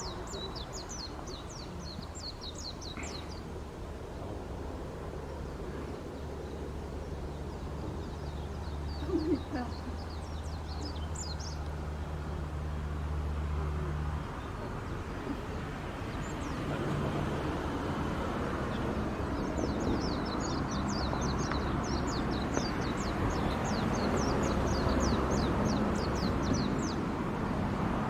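Low, steady hum of ship engines across the harbour, cutting off about halfway through and giving way to a broader rumble that slowly grows louder. Over it come several runs of rapid, high chirping calls.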